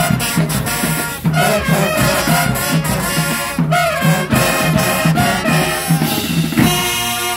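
Marching band playing: brass with sousaphones over a steady drum beat, ending on a held chord that cuts off at the end.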